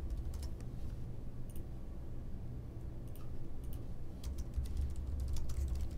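Computer keyboard keys and mouse clicks tapping at an irregular pace as text is typed, over a steady low hum.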